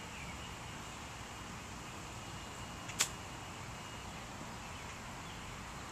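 A single crisp click of a 60-degree wedge striking a golf ball on a short pitch shot, about three seconds in, over a faint steady outdoor hiss.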